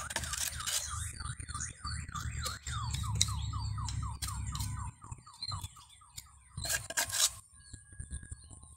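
Rapid repeated chirping, about four falling chirps a second over a low rumble, which fades out about five to six seconds in. Scattered clicks and scrapes of a small trowel working wet mortar come through.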